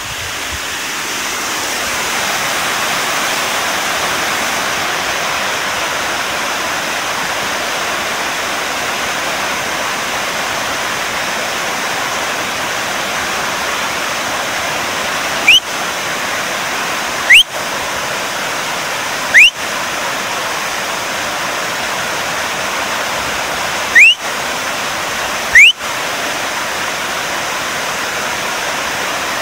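Water pouring over a river weir, a steady rushing sound. Five brief, loud rising chirps cut through it in the second half, of unclear source.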